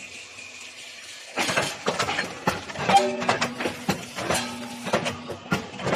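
A steady hiss of air at the punching unit for about the first second and a half. Then background music begins, with quick percussive clicks and plucked low notes.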